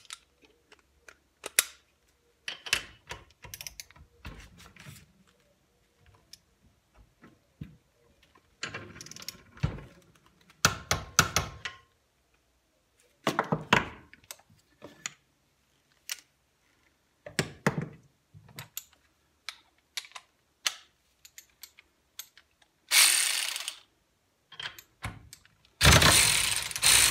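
Scattered clicks and clatter of steel sockets, adapters and wrenches being handled at a bench vise. Near the end comes a short burst of an ACDelco ARW-1209 3/8-inch cordless ratchet wrench's motor, then a longer, louder run as it breaks loose a bolt torqued to 45 ft-lb.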